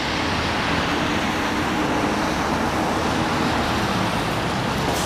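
Jet airliner flying low overhead on its landing approach: a steady rushing engine noise with a low hum underneath.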